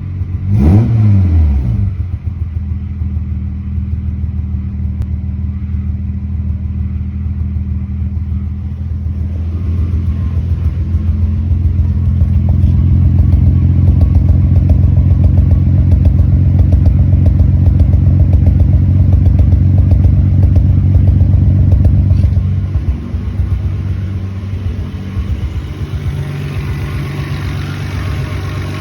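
Toyota 7M-GE straight-six engine catching with a brief flare in revs, then idling roughly. The idle grows louder about ten seconds in and drops back after about twenty-two seconds.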